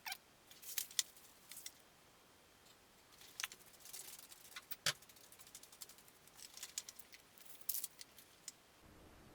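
Light clicks and scrapes of a metal spoon in a container of hot water, stirring thermoplastic pellets as they soften. The clicks come in small scattered clusters, about a second in, in the middle, and again near the end.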